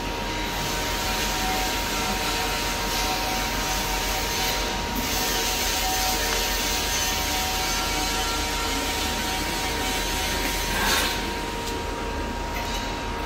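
Steady workshop background noise: a continuous hiss with faint steady hum tones underneath, and one brief louder sound about eleven seconds in.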